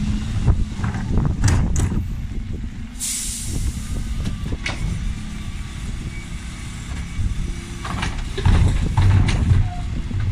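Dennis Elite 6 bin lorry's diesel engine running steadily, with a short hiss of air brakes about three seconds in. Plastic wheelie bins knock and clatter as they are wheeled along, louder near the end.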